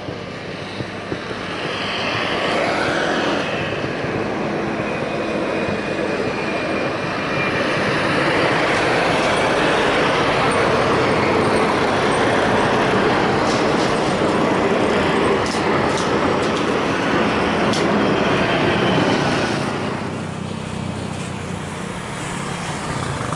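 Jet noise of a Comac ARJ21-700 climbing out after take-off from its two rear-mounted turbofans. A broad rushing engine sound swells over the first two seconds and stays loud, with a faint high whine on top early on. Near the end it cuts to the quieter, steady engine sound of a Boeing 737-800 on the runway.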